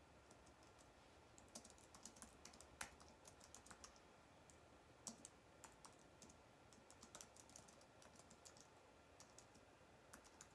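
Near silence with faint, irregular light clicks, at times several a second.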